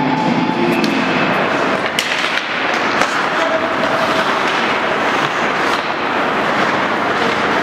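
Ice hockey play: a steady hiss of skates on the ice, with sharp clacks of sticks and puck, two of them standing out about two and three seconds in.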